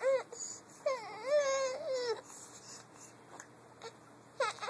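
A baby vocalizing in high-pitched, wavering cries: a short one at the start, a longer one that rises and falls about a second in, and another short one near the end.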